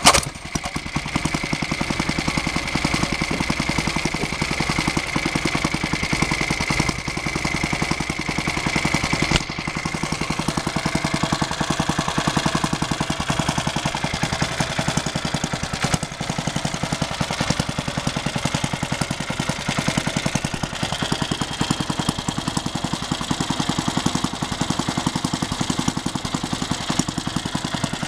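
Small air-cooled single-cylinder petrol engine catching on a pull of its recoil starter, then ticking over steadily at a slow idle, its carburettor set for a slow, quiet tick-over.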